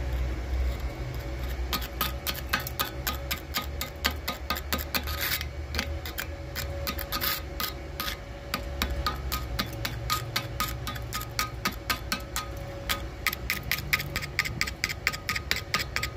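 A steel chipping tool knocking slag off freshly laid stick-weld beads on steel plate, in rapid sharp metallic taps of about four or five a second.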